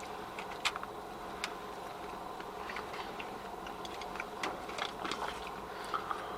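Quiet eating sounds: scattered light clicks of utensils against a dish, a dozen or so at irregular moments, over a steady low hum.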